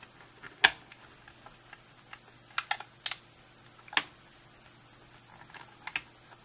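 The case clips of a third-generation iPod clicking as the case is pried apart: a few sharp, irregularly spaced clicks.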